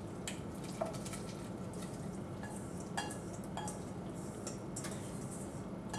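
Mushrooms being tipped from a ceramic bowl into a pot of cheese sauce: a few scattered light clinks of dishware, over a steady low hum.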